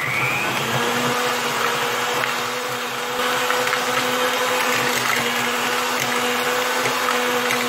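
Severin Comfort Mix electric hand mixer on its stand bowl, its beaters whipping butter. The motor spins up with a brief rising whine, then runs steadily with an even hum.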